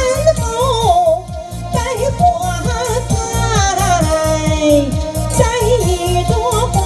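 A woman singing a Chinese song into a handheld microphone, amplified through a portable PA, over a recorded backing track with a steady beat. Her voice wavers with vibrato and holds long notes.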